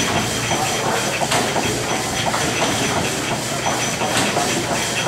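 Small stationary steam engine with twin flywheels running under live steam and driving a flat belt: a steady hiss of steam with a light mechanical clatter.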